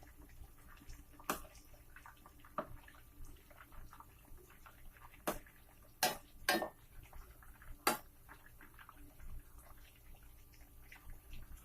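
A metal spoon knocking against a kadai about six times at irregular intervals, over faint crackling sizzle of chicken pakora deep-frying in oil.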